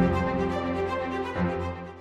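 Background music with held notes over a bass line, fading out near the end.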